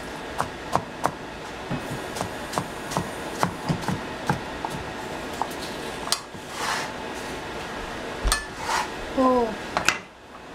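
Kitchen work: irregular knocks and clinks of a knife, cutting board and dishes, about two to three a second, with a few softer swishes between them.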